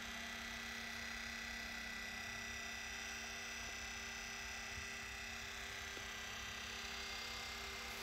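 Electric trolling motor rated at 100 pounds of thrust running steadily out of the water, its propeller spinning freely in air with an even electric hum.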